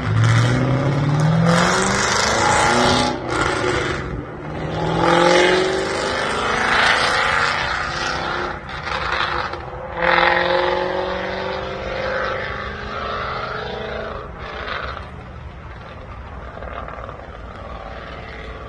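1997 Ford Mustang Cobra's 4.6-litre DOHC V8 on an open 2.5-inch exhaust with an x-pipe and no catalytic converters or mufflers, accelerating hard. Its pitch rises in three pulls with short breaks at the gear changes, then the sound fades away over the last few seconds.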